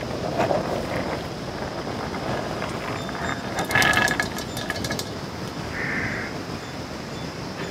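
Pomegranate seeds poured into a large aluminium pot of cut fruit, pattering in a brief burst of clicks about four seconds in, over a steady background rumble.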